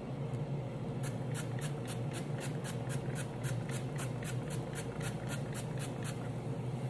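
Hand pump spray bottle spritzing rapidly onto green beans in a pot, about four short sprays a second, starting about a second in and stopping near the end. A steady low hum runs underneath.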